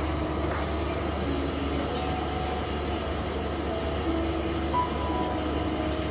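Soft instrumental background music: short held notes at changing pitches over a steady low drone.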